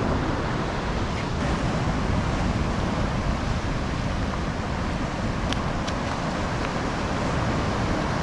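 Ocean surf breaking and washing against rocks in a steady rush, with wind buffeting the microphone.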